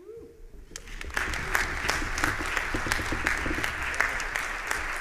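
Audience applause at the end of a performance. It breaks out of near silence about a second in and quickly swells into steady clapping.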